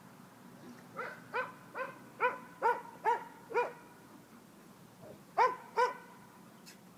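A dog barking: a run of seven quick barks, about two a second, then two more after a pause of nearly two seconds.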